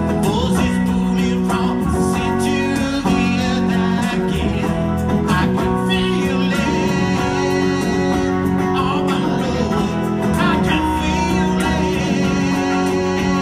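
Live solo performance: a man singing over a strummed acoustic guitar.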